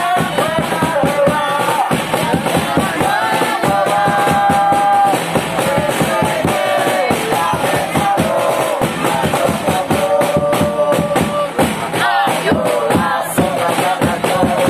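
A group of ultras supporters singing a chant together in unison, with a drum beaten with a mallet keeping a steady beat under the voices.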